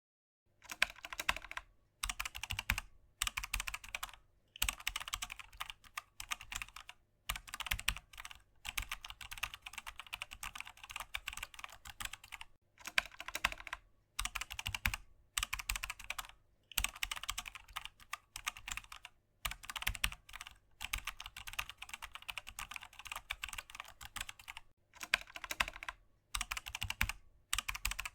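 Typing on a computer keyboard: rapid runs of keystrokes in bursts of one to two seconds, with brief pauses between them.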